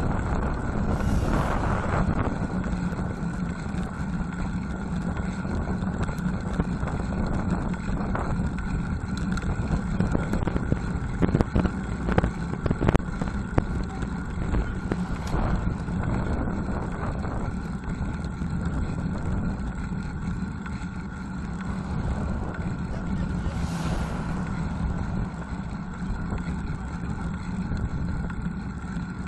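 Wind and road noise on a cheap bullet camera mounted on a moving road bicycle, a steady rumble with a rush of a passing car about a second in and another passing rush near 24 seconds. A few sharp knocks or rattles sound near the middle.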